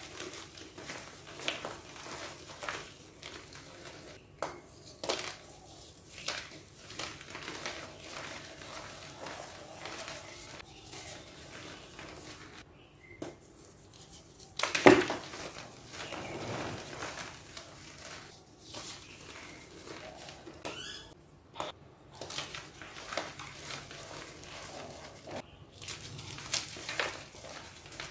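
Reformed gym chalk blocks being crushed and crumbled between bare hands, giving a stream of irregular dry crunches and crackles. About halfway through a block snaps apart with one loud crack.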